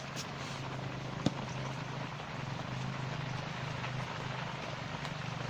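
A steady low hum from a small motor running, with a sharp click a little over a second in.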